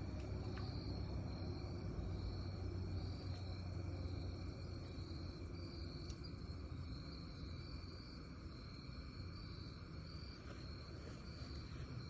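Insects chirping in a steady chorus at several high pitches, one of them pulsing in an even rhythm, over a low rumble that eases slightly about halfway through.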